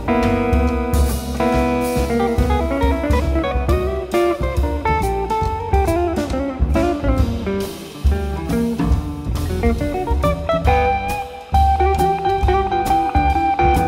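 Live jazz: a semi-hollow electric guitar solo over double bass and drum kit, with some notes bending in pitch midway and a long held note near the end.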